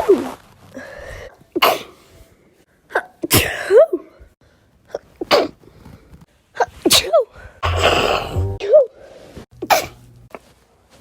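A woman sneezing over and over: about six sharp sneezes a second or two apart, several ending in a brief voiced tail.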